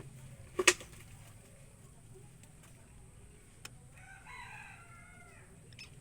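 A single sharp knock about half a second in, then a rooster crowing briefly in the background about four seconds in.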